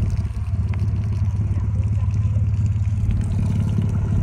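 Car engine running at steady revs, a low even drone with fine rapid pulsing.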